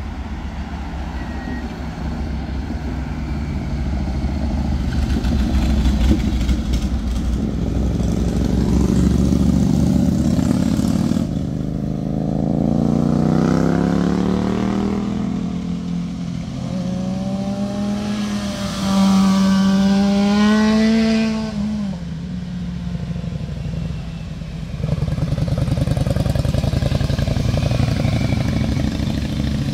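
Motorcycles passing one after another on a winding road. Their engines rise in pitch as they accelerate through the bends, and one loud pass a little past the middle holds a high, steady note before dropping away.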